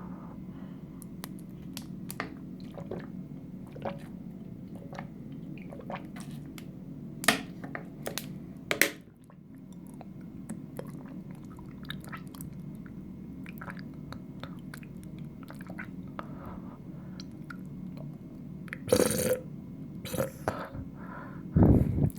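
A person gulping water, with wet swallowing clicks and smacks scattered throughout and a few louder gulps. Near the end comes a short, deep burp.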